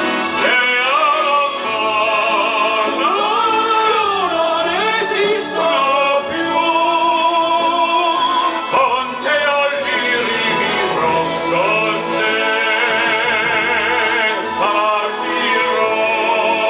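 A man singing with vibrato, holding long notes, accompanied by an accordion.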